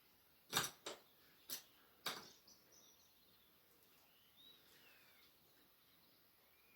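Four sharp clicks or knocks in the first two seconds or so, then faint bird chirps.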